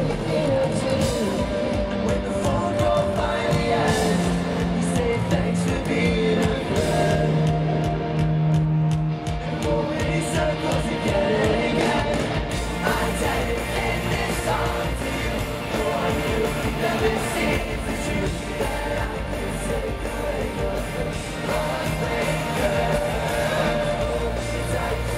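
Live rock band playing through a stadium sound system: drums, electric guitars and bass under a sung lead vocal, heard from within the crowd.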